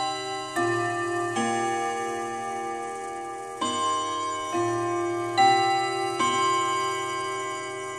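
Pendulum wall clock's hammers striking its gong rods, chiming the hour at twelve: two phrases of four ringing notes of different pitch, about one a second, with a pause of about two seconds between them and each note ringing on into the next.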